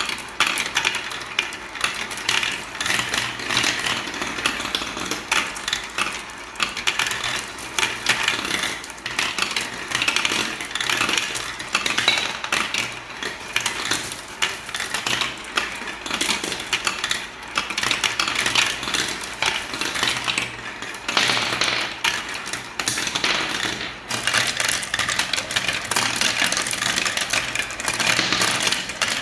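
Many small balls rolling and clattering down a marble run track: a continuous dense rattle of clicks and knocks that thins briefly now and then.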